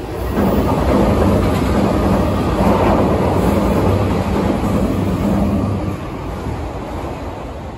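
Meitetsu electric train passing overhead on an elevated steel girder viaduct: a loud rumble of wheels on rail with a steady low hum, easing off after about six seconds.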